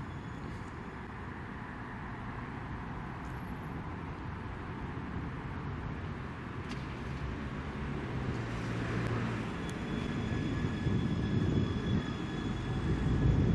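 Low-floor electric tram running along its tracks and drawing closer, its rumble growing steadily louder. A faint steady high whine joins in about two-thirds of the way through.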